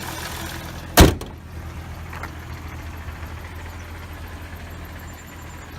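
The 2006 Hyundai Tiburon's 2.7 V6 is idling steadily with a faint remaining rattle, which the owner puts down to the clutch throwout bearing. A single loud thump comes about a second in.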